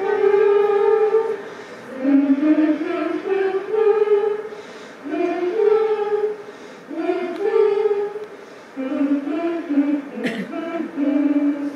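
Choir singing a slow melody of long held notes, phrase by phrase with short gaps between, as part of a ballet's score played over a cinema's sound system. A short sharp noise cuts in about ten seconds in.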